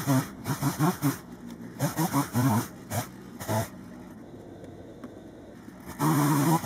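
Chainsaw revving in short, uneven bursts whose pitch rises and falls, with a lull of about two seconds before it picks up again near the end.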